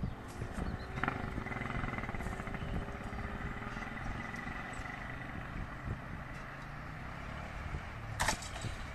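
Railway level-crossing barrier booms being lowered: a click as the barrier drive starts about a second in, then a steady whine from the drive that fades as the booms come down, and a sharp knock near the end as they settle closed. Low road-traffic rumble underneath.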